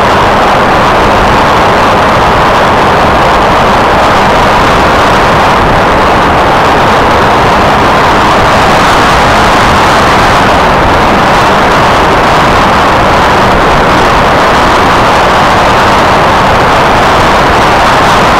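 Loud, steady rush of wind and electric motor and propeller noise, picked up by a camera riding on an F27C Striker RC flying wing in flight.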